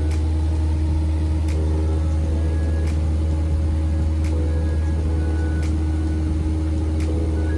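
Cabin noise of a single-engine light aircraft in flight: the piston engine and propeller run with a steady, loud drone. Faint ticks recur about every second and a half.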